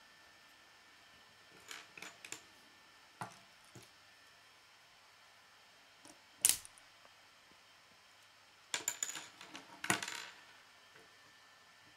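Plastic K'nex rods and connectors clicking and snapping together as they are pushed into place by hand: a few scattered clicks, one sharper snap a little past the middle, and a quick clatter of clicks and rattles late on.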